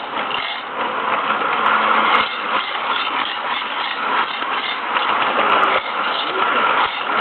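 Polar Express toy train running on its track, a steady mechanical clatter of motor and wheels.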